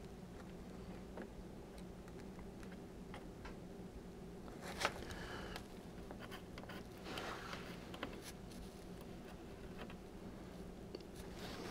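Faint light ticks and scrapes of a soldering iron tip and solder wire working a model railway rail joint, over a steady low hum, with one sharper tick about five seconds in.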